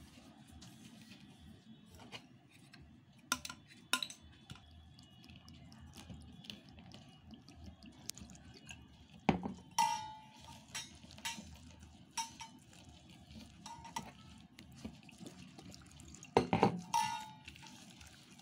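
Hand mixing thick gram-flour batter in a stainless steel bowl: fingers scraping around the bowl, with scattered sharp metallic clinks against its side that ring briefly, the loudest about nine seconds in and again near the end.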